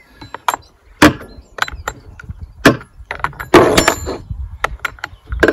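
Sharp metallic clicks and knocks, with a short clattering rattle about three and a half seconds in, from a metal tool working the chain tensioner of a Stihl chainsaw while a loose new chain is fitted on its long milling bar; the engine is not running.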